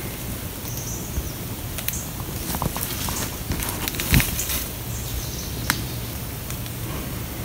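Moose browsing close by: rustling leaves and small twig snaps, with a single thump about four seconds in.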